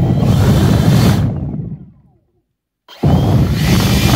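EGO 650 CFM leaf blower's brushless motor and fan, run from a cheap retrofit BLDC controller on a test run: a loud rush of air, twice, each starting abruptly, holding for about a second and a half, then dying away.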